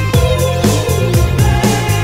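Hip-hop backing track with a steady drum beat and no vocals, and a falling synth line near the start.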